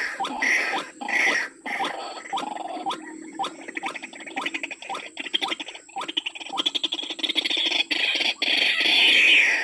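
White-breasted waterhen calling: a run of short rising notes, about two a second, over harsh rasping calls that grow loudest near the end.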